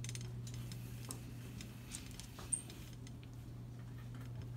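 Shopping cart rolling through a store, with faint scattered rattling ticks over a steady low hum and one brief high chirp about two and a half seconds in.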